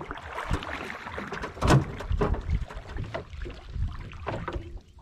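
Irregular knocks and rustling as a fishing net with its floats is fed over the side of a small wooden boat, with one louder knock about a second and a half in.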